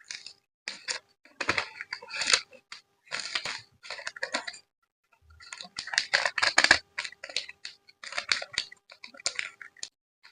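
Hands packing photocards: crinkling plastic sleeves and paper with small clicks and taps, in bursts with short pauses between. A faint steady hum sits underneath.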